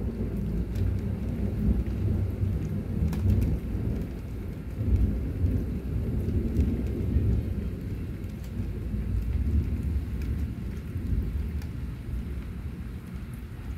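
Heavy rain falling on a paved yard, with scattered sharp drops close by. A deep rumble that rises and falls runs underneath and slowly dies down.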